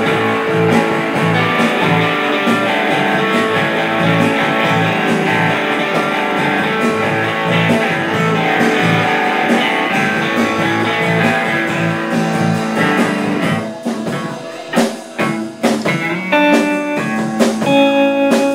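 Instrumental break of a blues-rock song, with guitar leading over the band. About fourteen seconds in the full sound drops away into sharp stops and sparser held notes.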